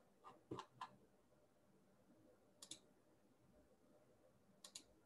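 Faint clicking at a computer: four quick clicks in the first second, then two double clicks about two seconds apart.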